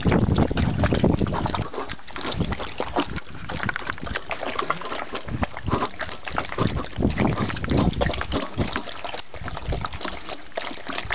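Two German shepherd puppies lapping water from a stainless steel bowl: a rapid, irregular run of wet laps and splashes.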